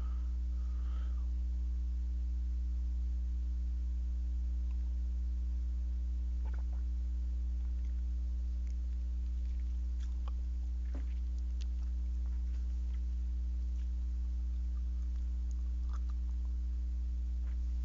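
Steady low electrical hum with a few faint, scattered clicks.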